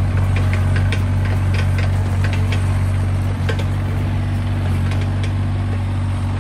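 Excavator's diesel engine running steadily with a deep hum, with scattered light clicks and clinks over it.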